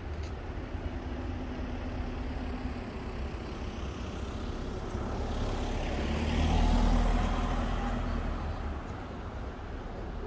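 A motor vehicle drives past on a city street. Its engine and tyre noise swell to a peak about two-thirds of the way in and then fade, over a steady low rumble of traffic.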